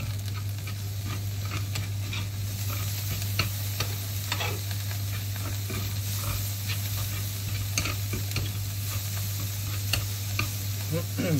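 Sliced onions sizzling in a hot ridged grill pan, with metal tongs now and then clicking and scraping against the pan as they are turned. A steady low hum runs underneath.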